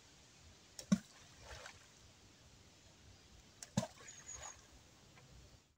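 Two orange-sized balls of groundbait thrown into a canal, each landing with a single sharp plop and a short splash, about three seconds apart.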